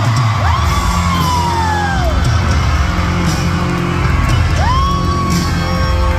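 Live rock band playing the opening of a song, with several fans in the crowd whooping over it in long gliding calls.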